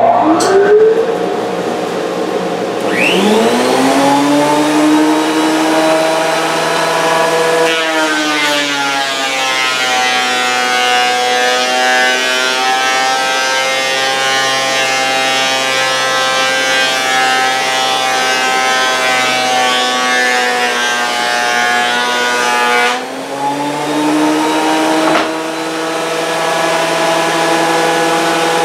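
Delta 12-inch portable thickness planer switched on, its motor whining up to speed over the first few seconds. About eight seconds in the pitch drops as a board feeds through and the cutterhead takes a cut; near the 23-second mark the pitch rises again as the board clears, a single knock follows, and the planer runs on unloaded.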